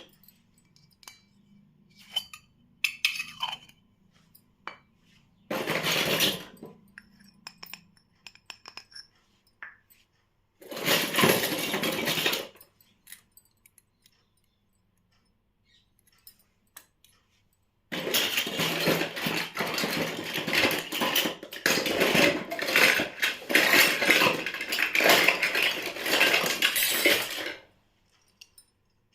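Handling of a miniature plastic toy kitchen set and its packaging: small plastic pieces giving light clicks and clinks, with three bursts of rustling, the last about ten seconds long.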